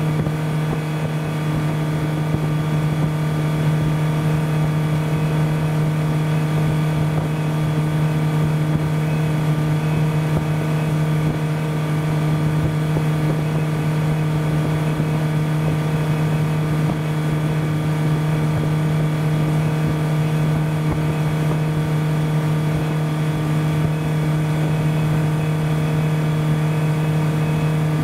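Motorboat engine running steadily under way, heard from on board: an even, unchanging low drone with no change in speed.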